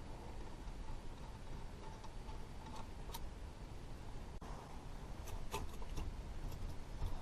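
Scattered light metallic clicks and taps from a wrench and brake caliper hardware being handled, coming more often in the second half, over a low steady background hum.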